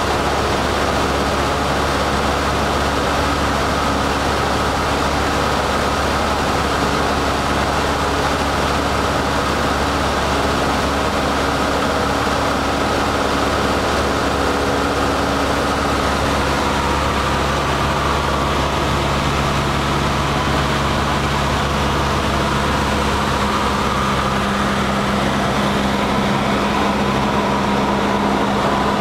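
Cessna 152's four-cylinder Lycoming engine and propeller droning steadily, heard from inside the cabin with rushing air, on approach to land. The engine note shifts lower about two-thirds of the way through, a power change.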